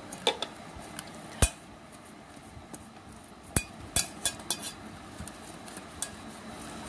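A silicone pastry brush with a metal handle knocking and clinking against a metal bowl as ghee is brushed around its inside. A handful of sharp, scattered clinks, the loudest about a second and a half in and again a little past halfway, over a faint scraping of the brush.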